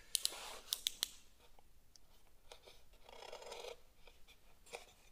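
A knife cutting the packing tape on a polystyrene foam shipping box. Several sharp clicks come in the first second, then a scraping slice about three seconds in, and a single click near the end.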